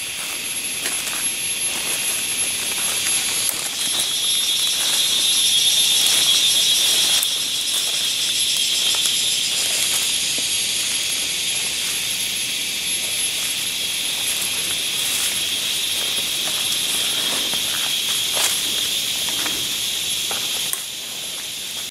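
A steady, high-pitched drone of forest insects, swelling about four seconds in and dropping back near the end, with faint rustling of footsteps through undergrowth.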